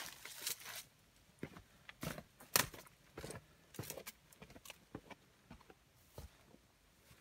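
Footsteps going down concrete steps and into long grass: an irregular run of scuffs and taps with rustling between them, the sharpest about two and a half seconds in.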